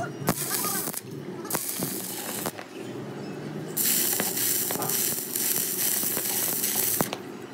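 Stick (electrode) arc welding over a crack in a truck's rear axle housing. The arc crackles and sputters in two short bursts as it is struck, then burns steadily from about four seconds in until it cuts off near the end.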